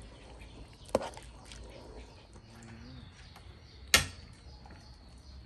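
Metal ladle knocking against an aluminium cooking pot: a light click about a second in, then a louder metallic knock with a short ring about four seconds in.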